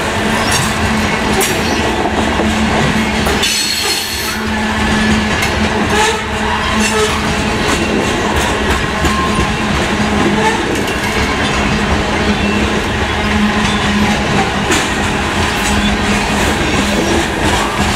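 Covered grain hopper cars of a freight train rolling past close by: a steady rumble of steel wheels on rail, with frequent clicks as the wheels cross rail joints and a steady low hum underneath.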